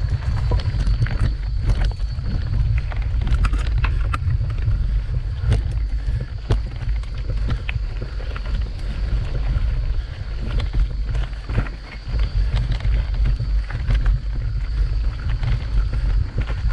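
Mountain bike rolling over a loose, rocky dirt trail: irregular knocks and rattles from tyres and frame hitting stones, over a heavy low rumble of wind buffeting the microphone.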